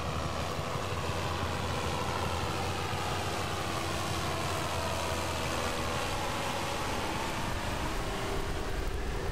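Diesel engine of a John Deere farm tractor running under load while pulling a weight-transfer sled, a steady drone whose note sags slightly and rises again near the end.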